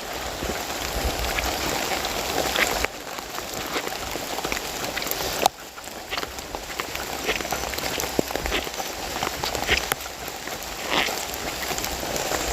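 Heavy rain falling steadily, a dense hiss with scattered sharp drip and tap sounds; the level drops abruptly twice, about three seconds and five and a half seconds in.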